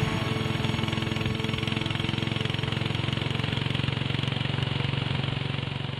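Sidecar motorcycle's engine running at a steady cruise, with a fast, even pulse and road and wind noise.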